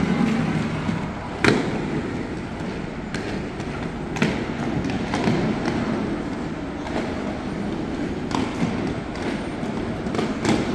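Roller-skating rink din: skate wheels rolling on the rink floor under a steady noise, with scattered sharp knocks and thuds, the loudest about a second and a half in.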